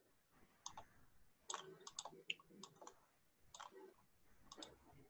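Near silence, with faint, irregular clicks at a computer.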